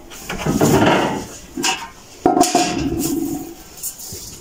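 Plastic buckets and a basin being handled and knocked about, with rustling and scraping and a sharp knock a little over two seconds in.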